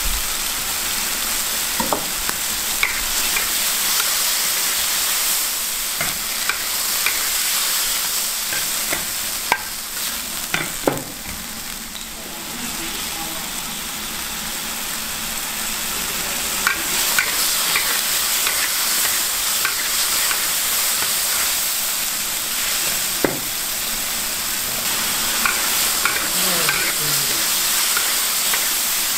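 Shrimps and cuttlefish sizzling in a large wok as they are stir-fried, with the metal spatula scraping and clicking against the wok now and then.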